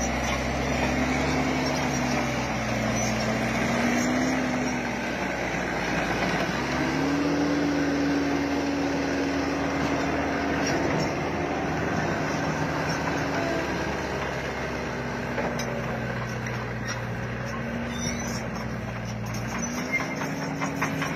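Heavy diesel engine running with a steady hum. Its pitch steps up about six seconds in, sinks back around fourteen seconds, and rises again near the end, as the engine speed changes.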